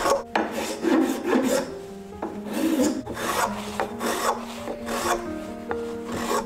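Hand file rasping across curly birch in repeated strokes, shaping a wooden tobacco pipe.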